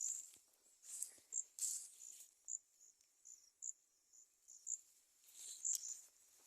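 Insects chirping, cricket-like: short, high chirps repeating irregularly a couple of times a second. A few louder rustles come near the start and again near the end.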